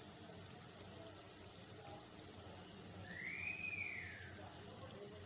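Flour-coated chicken pieces deep-frying in a pan of hot oil, a steady low sizzle, with a steady high-pitched tone over it. About three seconds in, a short whistle rises and falls once.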